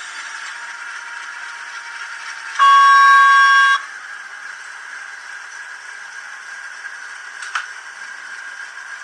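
DCC sound decoder in an N-gauge DF11Z diesel locomotive model sounding its horn once, a loud single-pitched blast of about a second, over the steady rattle of the model train running on the track. A sharp click near the end.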